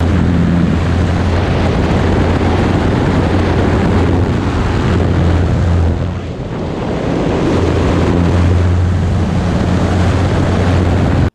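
Bücker Jungmann biplane's engine and propeller running in flight, a steady low drone under heavy wind rush on an outside-mounted microphone. The sound dips briefly about six seconds in, while the biplane is upside down.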